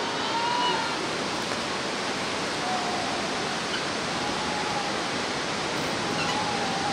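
Steady rushing of the Bhote Koshi, a whitewater river in the gorge below. A few faint short high calls sound over it, one near the start and a few more from about halfway on.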